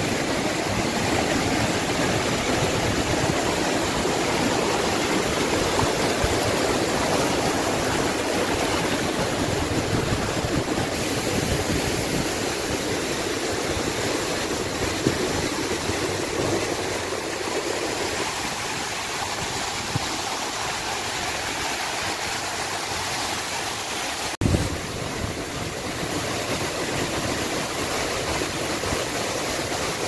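The Tumpak Sewu waterfall and its stream rushing: a loud, even roar of falling water. The deeper part of the roar thins about two-thirds of the way through, and a single short knock comes near the end.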